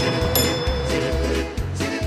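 Instrumental background music: a wavering melody over pulsing bass notes, with a bell-like chime about half a second in.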